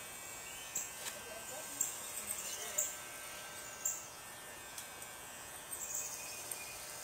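Faint outdoor background hiss with a short high chirp repeating about once a second.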